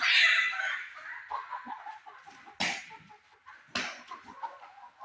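Laying hens clucking and calling while being handled into battery cage cells, with a loud scuffle at the start and two sharp knocks about a second apart midway.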